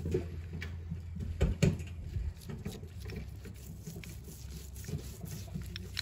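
Gloved hands handling a steel locking hub while spreading grease on its teeth: scattered small clicks and rustles, with a duller knock about a second and a half in, over a steady low hum.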